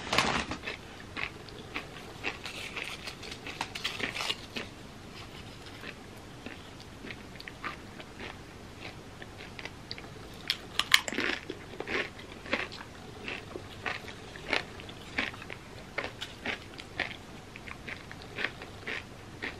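Close-up crunching and chewing of tortilla chips loaded with creamy spinach dip: a run of short crisp crunches, with the loudest bite about halfway through.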